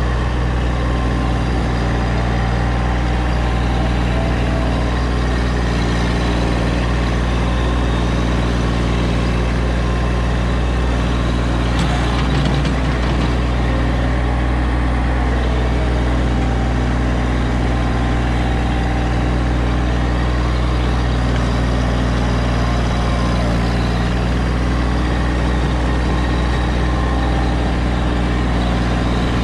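A steady, unchanging low engine drone, like an engine running at idle.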